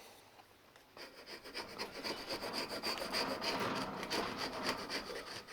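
A hand-held edge tool scraping and shaving along a wooden axe handle clamped in a vise, in quick repeated strokes that start about a second in.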